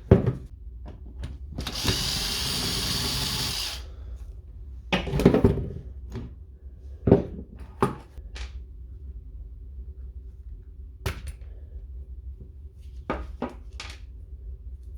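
A power driver whirring for about two seconds as it backs screws out of the shears' plastic casing, followed by scattered knocks and clicks as the parts are handled and set down.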